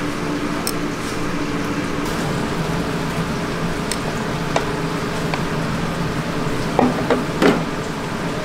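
Steady background noise of a street-food stall with a low hum. A few light clicks and knocks come through, most about seven seconds in.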